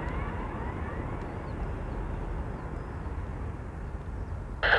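Airbus A350-900 jet engines after landing, a steady rumble that slowly fades. Near the end, radio speech from an air-traffic-control scanner cuts in suddenly.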